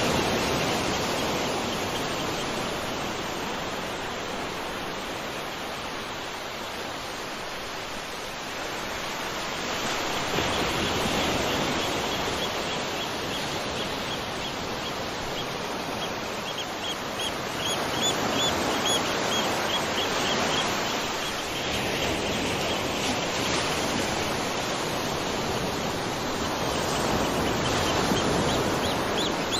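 Waterfall: steady rushing water that swells and eases a little, with a small bird chirping in quick runs over it from about a third of the way in.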